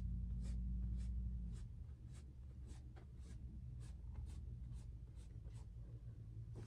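Paintbrush brushing on a stretched canvas in short, quick strokes, about two a second, while a painting is being touched up. A low steady hum sits underneath, louder for the first second and a half.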